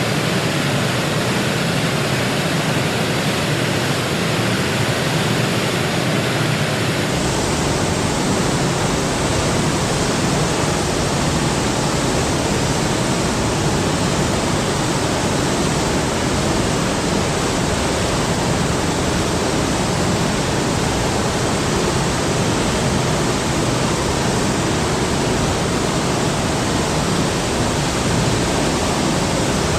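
Large waterfall: a steady rush of heavy falling water. About seven seconds in the sound shifts suddenly, gaining a deep low rumble and losing some of its top hiss.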